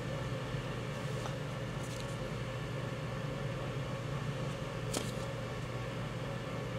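Faint rustles and light clicks of cardboard LP jackets being handled and slid out of a stack, one in shrink wrap, the sharpest click about five seconds in. A steady low hum and hiss lie underneath.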